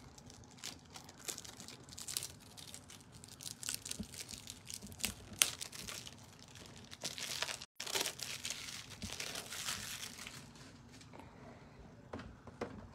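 Irregular crinkling and rustling of something being handled, with scattered sharp clicks. It is busiest through the middle and thins out toward the end.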